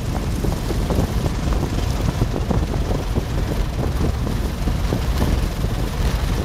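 Light tow plane rolling along a grass airstrip: a steady, rough low rumble of its engine and the wheels over the bumpy grass, with wind buffeting the microphone.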